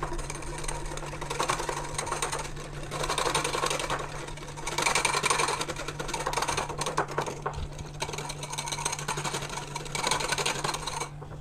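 Rapid stirring of instant yeast into milk in a bowl, a utensil tapping and scraping quickly against the bowl in a fast even clatter that swells and eases in waves.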